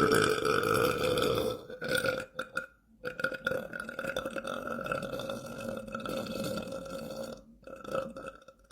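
A man belching: a long belch that breaks up about two seconds in, then a second drawn-out belch of four to five seconds, and a short one near the end.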